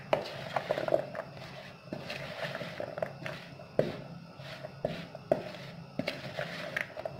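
Spoon stirring and tossing chopped potato and onion through dry gram flour in a plastic bowl: irregular scrapes and light knocks of the spoon against the bowl.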